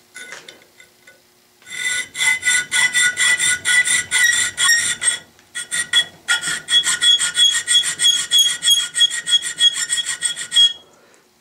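Three-corner (triangular) hand file rasping back and forth in a hole in eighth-inch aluminum plate, about four strokes a second, with a ringing note from the metal. The strokes come in two runs with a short pause in between, starting about two seconds in and stopping near the end.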